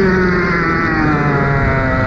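Racing kart engine heard from onboard, its revs falling steadily through the first second, then holding at a lower pitch.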